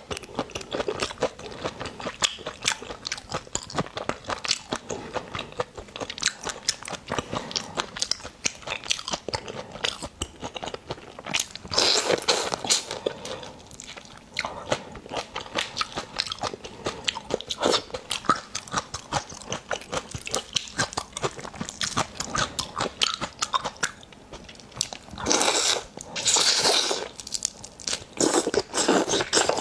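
Close-miked eating of spicy marinated raw shrimp: shells crunching and crackling as they are bitten and peeled, with chewing, in many quick clicks. There are louder, noisier stretches about twelve seconds in and twice near the end.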